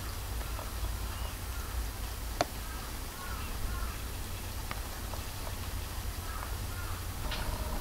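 Faint birds calling outside in short, scattered chirps over a steady low rumble, with a single sharp click about two and a half seconds in.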